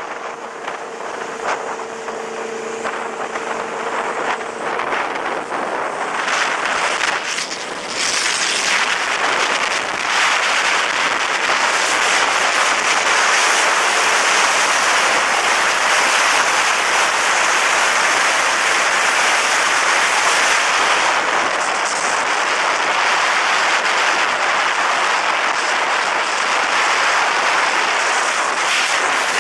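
Wind and road rush from a motorcycle riding at speed, a steady hiss that grows louder about six seconds in.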